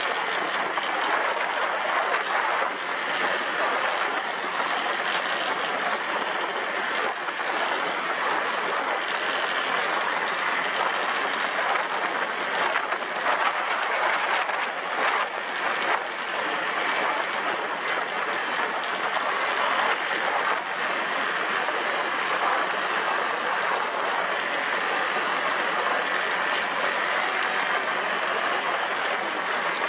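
ATV riding along: engine and wind rushing over the microphone blend into one steady, unbroken noise.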